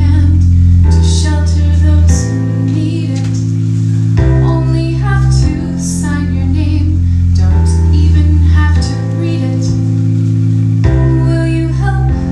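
A woman singing a show tune over guitar and bass accompaniment, the bass notes changing every couple of seconds.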